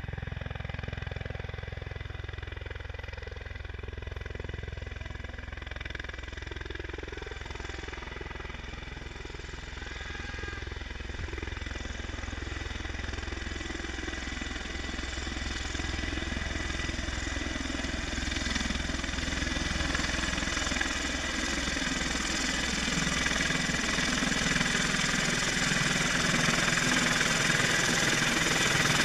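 Bell Boeing V-22 Osprey tiltrotor running: a steady turbine whine over a low rumble from the rotors, growing gradually louder.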